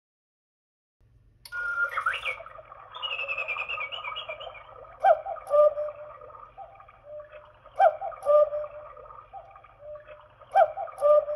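Battery-operated quartz cuckoo clock sounding the hour through its speaker: a burst of recorded birdsong chirps, then a recorded two-note cuckoo call repeated three times, about every three seconds.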